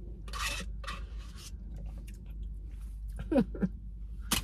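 Close-up eating sounds of wild rice soup taken from a plastic spoon: soft slurps and chewing in the first second and a half, two short falling hums a little past three seconds in, and a sharp lip smack near the end.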